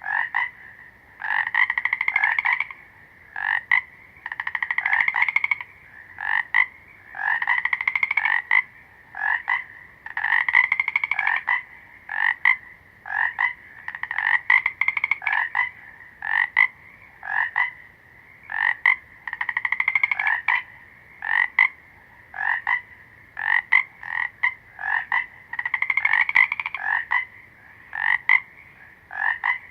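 Frogs croaking in a repeating pattern: short single croaks alternate with longer pulsed calls of about a second and a half, over a steady high drone.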